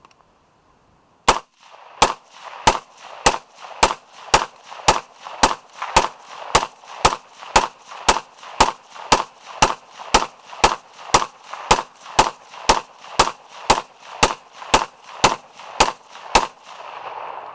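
Suppressed AR-style rifle fired semi-automatically at a steady pace of about two shots a second, roughly thirty shots in a row. This is about a magazine's worth, fired to heat the suppressor.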